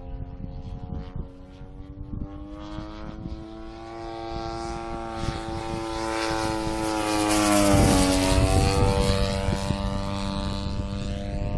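Engine and propeller of a 35%-scale GoldWing Sbach radio-controlled aerobatic plane flying a pass: the drone grows louder and slightly higher in pitch, then drops sharply in pitch about eight seconds in as the plane goes by.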